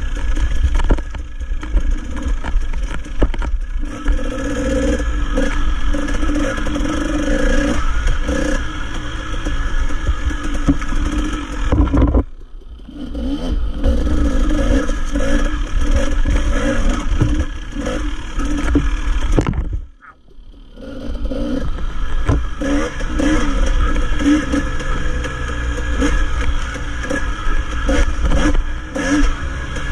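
Dirt bike engine revving up and down as the bike is ridden over a rough trail, with clatter from the bike over rocks and roots. The engine sound drops away sharply for a moment about twelve seconds in, and again more deeply about twenty seconds in.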